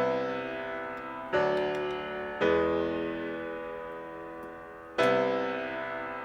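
Background music: slow piano chords, each struck and left to fade, a new one every second or two.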